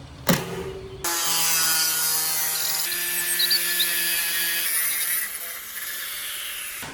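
A power tool starts about a second in and runs steadily with a high whine for about four seconds, then winds down. A single click comes just before it starts.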